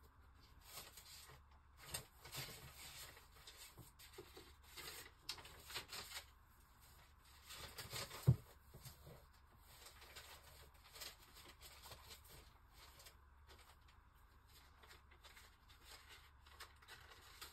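Sheets of paper rustling and shuffling as they are sorted through by hand, with one sharp knock about eight seconds in.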